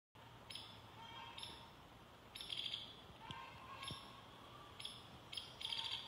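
Hairy woodpecker giving repeated short, sharp staccato calls, some run together in quick chattering bursts.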